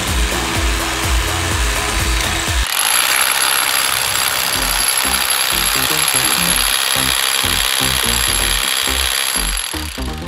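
Hammer drill with a masonry bit boring a hole into concrete: a steady high whine over rapid hammering. The sound changes and fills out about two and a half seconds in.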